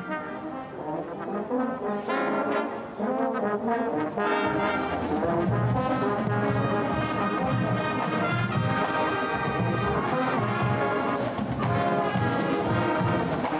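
High school marching band playing, trumpets, saxophones and other brass sounding together. The music swells over the first few seconds, and low notes come in underneath about four and a half seconds in.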